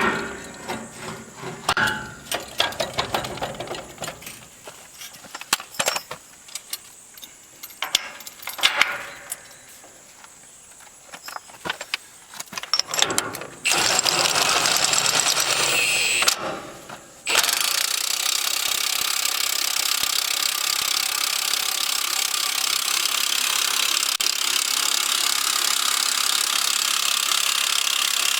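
Metal clinks and clatter as a socket is handled on the jack, then an impact wrench runs the jack's screw through the welded-on nut. It runs in a burst of about two and a half seconds, stops briefly, then runs steadily for about eleven seconds.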